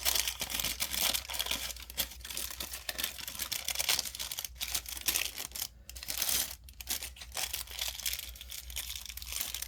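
Small plastic packaging crinkling and rustling as it is handled and pulled open, in an irregular run of crackles.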